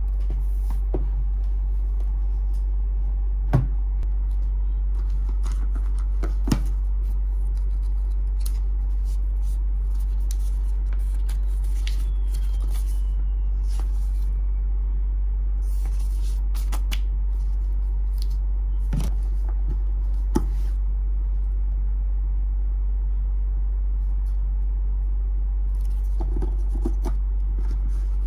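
A steady low hum with scattered light clicks and taps from box and packaging being handled.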